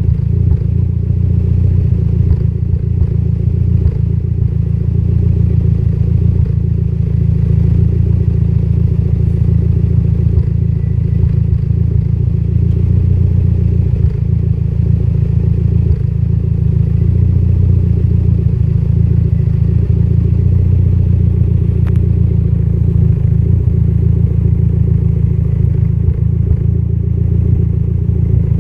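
Mitsubishi Lancer Evolution X's turbocharged 2.0-litre four-cylinder engine idling steadily with a lean idle misfire.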